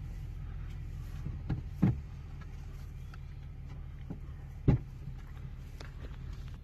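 Pickup truck engine idling, heard from inside the cab as a steady low hum, with a few short knocks, the loudest about two-thirds of the way through.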